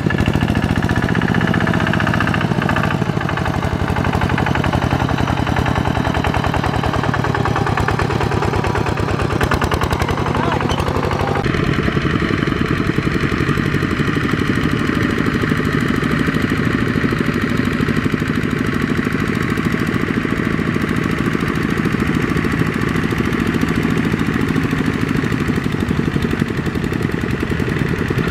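Single-cylinder diesel engine of a two-wheel walking tractor running under load with a fast, steady chugging as it hauls a trailer of rice sacks. The sound changes abruptly partway through.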